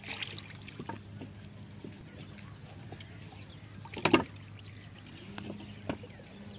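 Quiet handling of a wooden boat on still water: a few faint knocks, and one louder thump about four seconds in, over a steady low hum.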